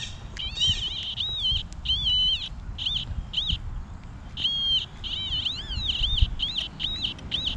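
A songbird singing a long run of short, high notes that rise and fall, some held flatter, repeated with little pause, over low rustling of soil being handled.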